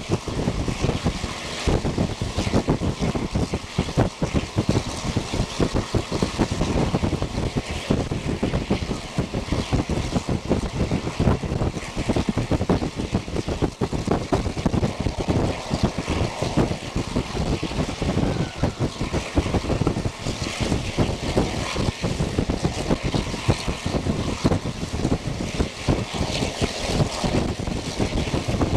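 Wind buffeting the microphone through the open window of a moving old-type passenger coach, over the train's running noise. The sound is a loud, uneven rush with no steady beat.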